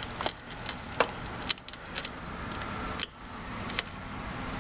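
Scattered clicks and light knocks of a flathead screwdriver working a plastic fuel-tank rollover valve out of its rubber grommet. Behind them, a cricket chirps steadily, about two or three chirps a second.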